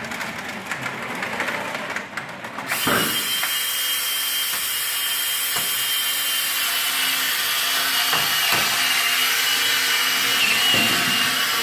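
Robot's electric climbing winch starts about three seconds in and runs steadily under load as it winds the rope to haul the robot up. It makes a motor-and-gearbox drone with a steady high whine.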